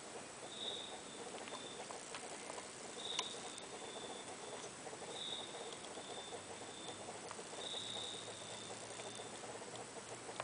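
Quiet hand work at a soldering job: a few small clicks as wires and a soldering iron are handled. A faint high chirp sounds four times, about every two and a half seconds, each one falling away into a thinner tail.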